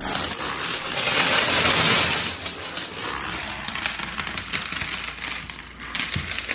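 Plastic dominoes toppling in a chain on a wooden floor: a dense, rapid run of light clacks, loudest about one to two and a half seconds in.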